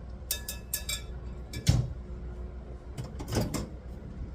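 A few short household knocks and clicks, the loudest a heavy thump about a second and a half in, over a low steady hum.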